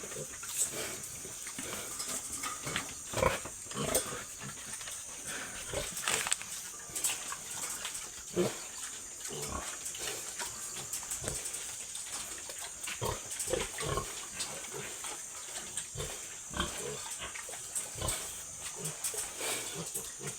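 Pigs grunting and squealing in short, irregular calls, the loudest about three to four seconds in, over a steady high hiss.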